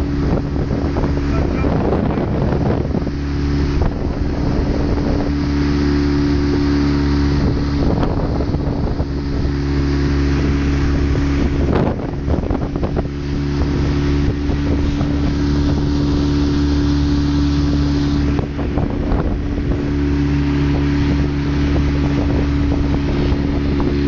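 Boat engine running steadily under way, a constant low hum, with wind noise on the microphone.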